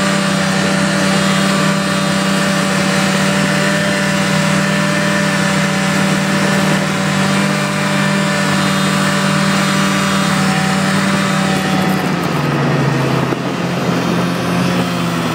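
Snowmobile engine running at a steady speed, its drone dropping in pitch about twelve seconds in as it slows.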